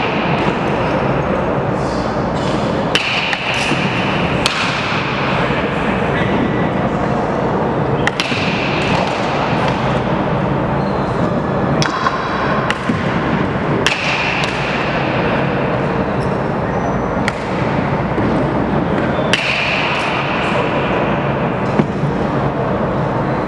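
Baseballs cracking off bats and popping into leather gloves, a dozen or so sharp hits spread unevenly, each ringing on in a large echoing indoor hall over a steady background din.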